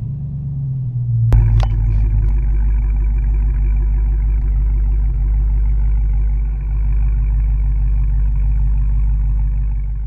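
Dodge Challenger SRT Hellcat's supercharged 6.2-litre V8 idling at a steady speed, a deep even rumble heard close to the exhaust tip. About a second in there is a sharp click, after which the rumble is louder.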